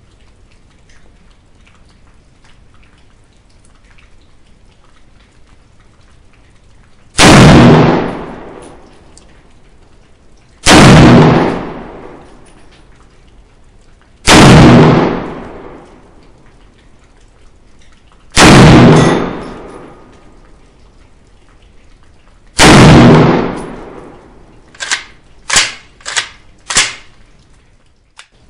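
Five rifle shots from a Molot VEPR semi-automatic rifle in 7.62x54R, three to four seconds apart, each followed by a long echoing decay. Near the end come a few short, sharp clicks.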